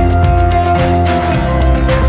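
Background music with sustained melodic notes over a steady bass and beat.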